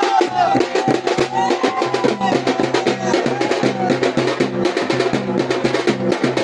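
Fast, dense drumming in rapid, closely spaced strokes, played for the palkhi procession dance. A wavering high melody line runs over it for the first four seconds or so.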